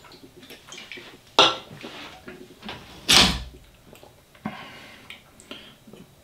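Hands handling a desktop 3D printer's carriage and timing belt: light clicks and clacks, with a sharp clack about a second and a half in and a heavier knock with a thud around three seconds in.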